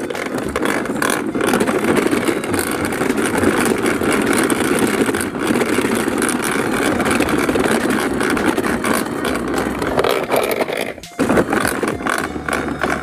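Large plastic toy dump truck pulled by hand over grass: a steady rumbling and rattling from its plastic wheels and body, with the die-cast toy cars loose in its bed. It dips briefly about eleven seconds in.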